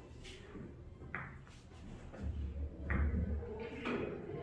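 Carom billiard balls clicking against each other about four times, a second or more apart, during gentle série américaine strokes along the rail. A low rumble swells in the middle.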